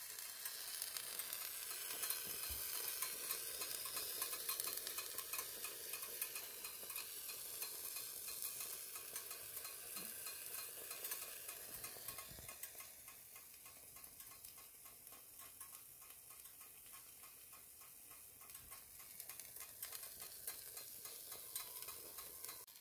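Pizza sizzling and crackling softly in the hot aluminium pan of an electric pizza cooker, a fine hiss full of tiny pops that grows fainter about halfway through.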